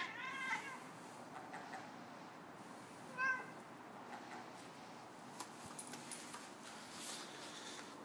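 Savannah cat chattering at a seagull: a quick run of short chirping calls at the start, fainter chirps after, and one short, louder chirp about three seconds in.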